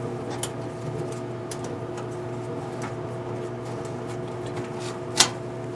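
Furnace blower-cabinet door panel being handled and taken off: light scattered clicks and rattles, with one sharp metal knock about five seconds in. A steady machine hum runs underneath.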